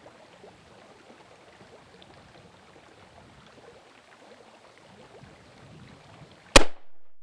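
Faint outdoor background noise, then a single sharp, loud .223 rifle shot about six and a half seconds in, fired at a Tannerite target.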